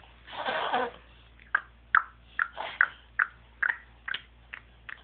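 A short breathy vocal sound, then a run of about nine light, sharp clicks, roughly two to three a second.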